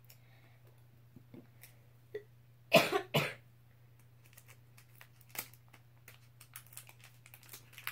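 A person coughs twice in quick succession about three seconds in, in an otherwise quiet room with a few faint scattered ticks afterwards.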